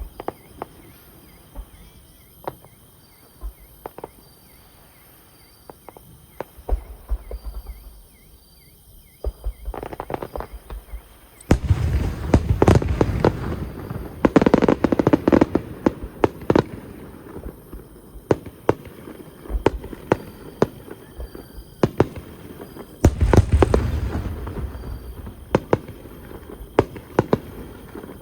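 Aerial fireworks shells bursting with deep booms and crackling. Scattered single bangs give way to a dense volley about eleven seconds in, and a second heavy volley comes near the end.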